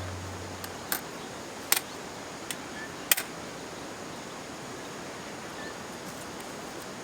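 Wood fire burning in a firepit: a steady hiss with a few sharp crackling pops in the first few seconds, then only the steady hiss. A music tail fades out at the very start.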